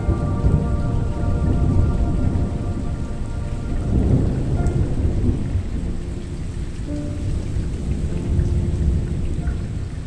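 Thunder rumbling and rolling continuously with steady rain falling, the rumble swelling about two seconds in and again about four seconds in. Soft sustained music chords sound faintly over it during the first few seconds and again briefly later.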